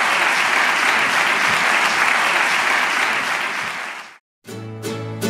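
Audience applauding steadily, fading out about four seconds in. After a brief silence, string music with plucked and bowed instruments starts near the end.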